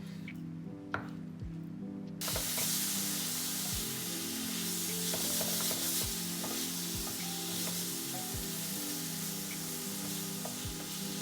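Food starts sizzling in a hot pan about two seconds in and keeps frying steadily, over background music with a steady beat.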